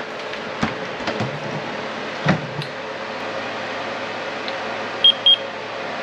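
Two short high beeps from a handheld infrared thermometer gun taking a reading, about five seconds in. Under them is a steady background hum, and a few clicks and knocks of handling come in the first half.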